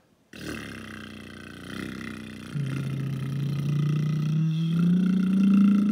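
A toddler makes one long, low voice sound with his mouth open. It is rattly at first, then about halfway through it settles into a held note that slowly rises in pitch and gets louder.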